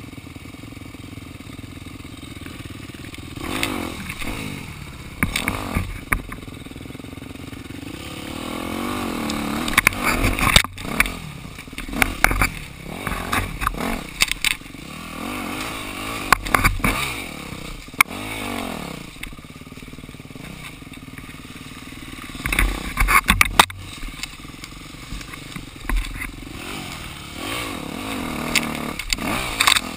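Dirt bike engine running on a trail ride, its pitch rising and falling in repeated surges as the throttle is worked, with frequent sharp knocks and clatter.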